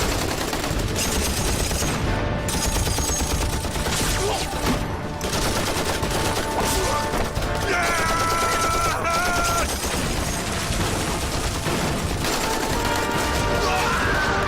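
Dense, continuous battle gunfire: rifles and machine guns firing in a rapid, unbroken fusillade, with background music underneath.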